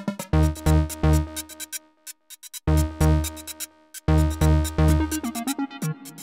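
Electronic dance music with a heavy bass-drum beat and synthesizer chords. It cuts out briefly about two seconds in, then comes back in full.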